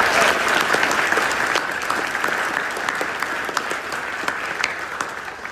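Audience applauding, loudest at first and slowly dying away near the end.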